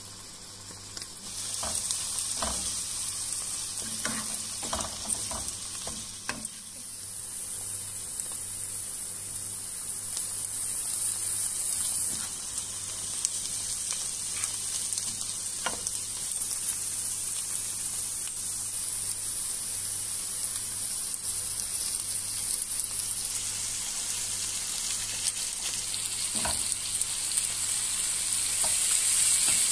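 Diced onions frying and sizzling in oil in a non-stick pan, with a spatula stirring the mixture and now and then knocking on the pan. The sizzle grows louder near the end.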